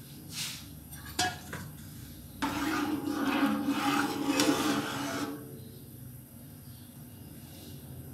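Utensil clinking twice against a saucepan, then stirring rice through boiling water for about three seconds, scraping around the pan, over the low steady bubbling of the pot.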